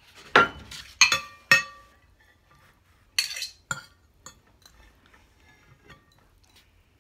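Metal forks clinking and scraping against plates while noodles are lifted and served: about six sharp clinks with a short ring, most of them in the first half.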